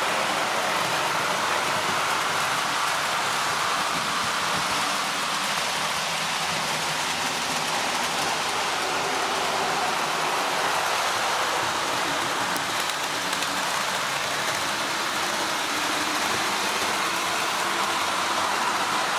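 Accurascale Class 92 model locomotive running its train at about a third speed: a steady rolling rattle of the coach and wagon wheels on the track. The locomotive's motor itself is quiet, running smoothly after its decoder's back-EMF was set up.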